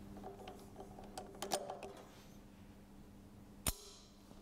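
Faint metallic clicks of a torque wrench tightening the inner driveshaft bolts, a few light clicks in the first two seconds and one sharp click near the end, over a steady low hum. The click of a click-type torque wrench marks the set torque being reached.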